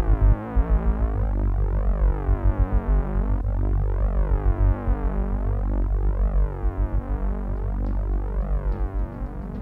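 Experimental electronic music built from processed printing-press sounds: a pulsing low bass under dense tones that sweep up and down about every two seconds.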